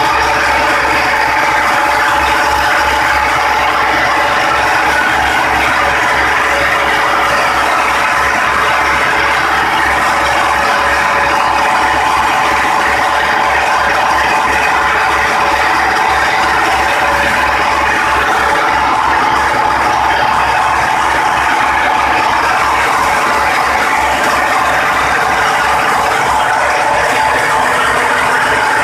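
Old Belarus tractor diesel engine running steadily under load, driving a flour mill through belts and pulleys. A loud, continuous mechanical clatter of engine, belts and mill, with a fast, even low pulsing from the engine.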